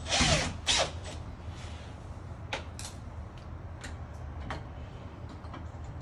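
Makita cordless drill-driver whirring briefly as it drives a screw into a deadbolt, its pitch rising and falling in one short run, then a second quick burst. A few light sharp clicks follow.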